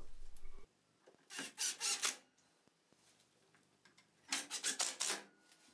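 Two short bursts of rasping, scraping noise, each made of a few quick strokes, about three seconds apart.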